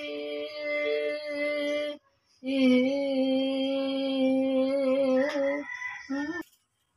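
A woman singing a Tagalog love song with no accompaniment, holding two long steady notes of about two and three seconds with a short break between, then a brief note before stopping.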